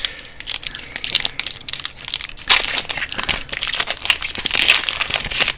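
Foil wrapper of a Pokémon card booster pack crinkling and crackling irregularly as it is handled and opened, with louder crackles about halfway through and again near the end.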